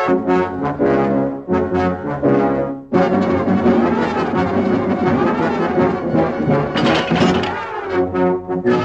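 Brass-led orchestral closing music from a cartoon's end titles. Short detached chords play for the first few seconds, then about three seconds in the full orchestra comes in with a dense, continuous passage.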